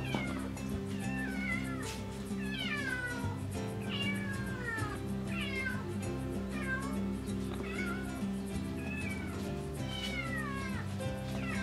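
Black kitten mewing again and again, high thin mews that each fall in pitch, about one a second, over background music with steady low notes.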